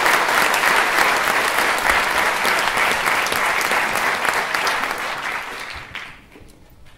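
A large audience applauding, dense clapping that dies away about six seconds in.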